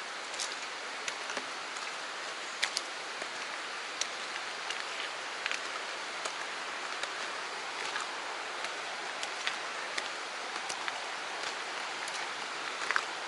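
Steady rushing of water from a mountain stream. Scattered short, sharp ticks sit on top of it, a few every second.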